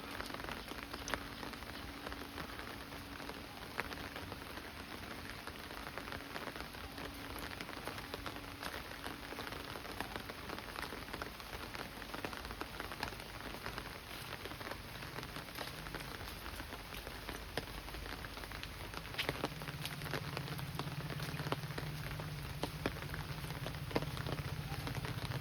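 Steady monsoon rain falling, with many scattered louder drops ticking on surfaces. A low steady hum joins in past the middle and grows stronger near the end.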